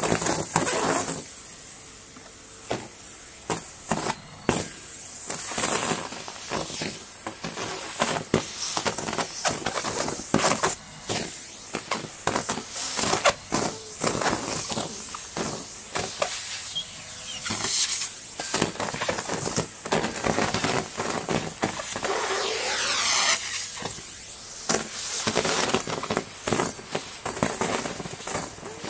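Numatic Henry 160 vacuum cleaner running with a steady high-pitched hiss of rushing air. Leaves crackle and rattle irregularly as they are sucked up.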